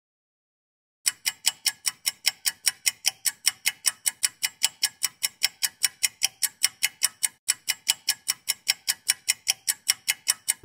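Rapid, regular ticking, about four to five sharp ticks a second, starting about a second in after silence, with a brief break around seven and a half seconds in.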